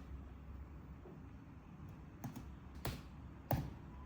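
Laptop keyboard keystrokes: three separate key taps, about half a second apart, in the second half.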